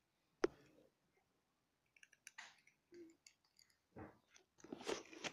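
Cats crunching dry kibble: scattered crisp clicks and crunches that grow denser near the end, with one sharp click about half a second in.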